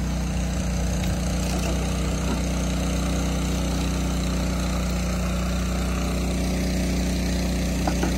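Small engine idling steadily, an even low hum that does not change pitch, with a few faint knocks of buckets and packets being handled.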